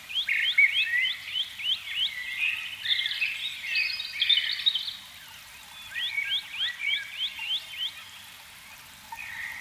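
High, chirping wildlife calls: runs of quick rising chirps, about four or five a second, with a tangle of warbling calls about halfway through and a second run of chirps later on.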